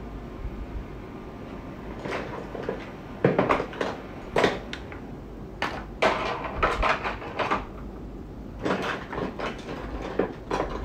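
Irregular knocks and clatter of small objects being handled and set down, a few short clusters spread over several seconds.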